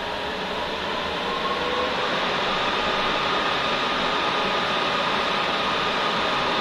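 TIG welding arc on an aluminium ATV swingarm: a steady hiss with a faint, steady high tone, growing a little louder over the first second or two and then holding.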